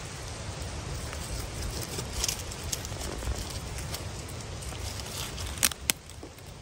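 Dry leaf litter and twigs crackling and rustling on a forest floor under a steady low rumble, with two sharp clicks close together near the end.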